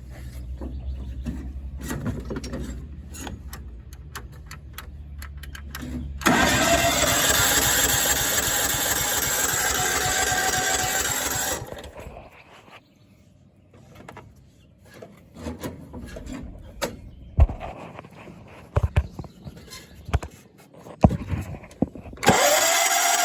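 A John Deere being cranked by its starter motor in a long burst of about five seconds, then again near the end with a rising whine, and the engine does not catch. Scattered clicks and knocks come between the two tries.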